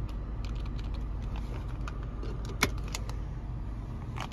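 Soft plastic clicks of keys being pressed on a TYT TH-9000D hand microphone keypad, with one sharper click about two and a half seconds in, over a steady low rumble inside a car cabin.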